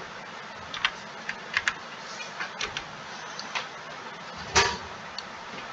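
Irregular light clicks and taps of a computer mouse and keyboard being worked, with one louder knock late on, over a steady background hiss.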